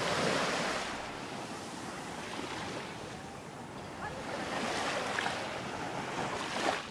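Sea surf washing in as a steady noisy wash that is loudest at the start, eases, and swells again after about four seconds.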